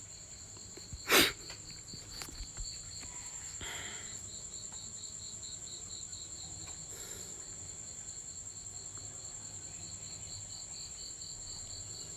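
Insects chirring steadily: a thin high whine with a lower note pulsing about four times a second. About a second in comes one sharp knock, the loudest sound, followed by a few fainter clicks and a brief rustle.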